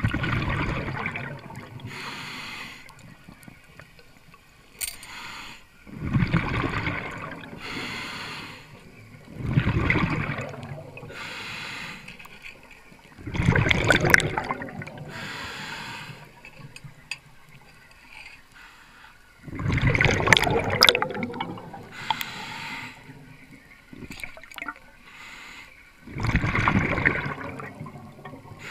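A scuba diver breathing through a regulator underwater: about six breaths, each a loud bubbling exhalation followed by a quieter hiss of inhalation.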